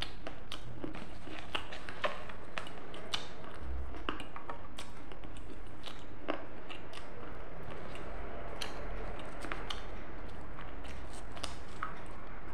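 A person chewing close to a clip-on microphone, with many irregular crisp clicks and crunches.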